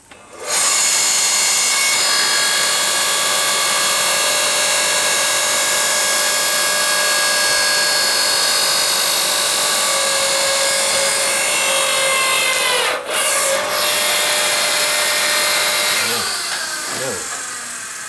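Electric log splitter's motor and hydraulic pump running loud and steady as the ram presses a thick log against the wedge without splitting it; the sound cuts out briefly about three quarters through, then fades away near the end.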